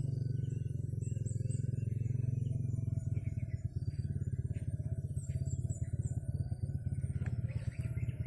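A small engine running steadily, a low hum with a fast, even pulse. Faint high chirps, like small birds, sound above it.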